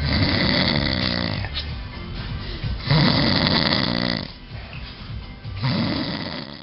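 A man snoring heavily: three long snores, each with a low, wavering pitched tone under a raspy noise, coming about every two and a half to three seconds.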